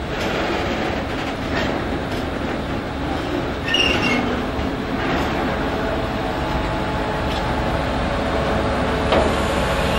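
Freight wagons rolling slowly past, wheels clicking over rail joints, with a brief high wheel squeal about four seconds in. In the second half the steady running of the Kaelble-Gmeinder DE 500 three-axle diesel shunting locomotive comes up as it draws alongside.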